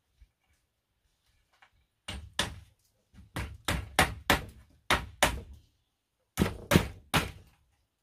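Claw hammer striking bamboo poles, about a dozen sharp blows in quick runs, beginning about two seconds in and stopping about seven seconds in.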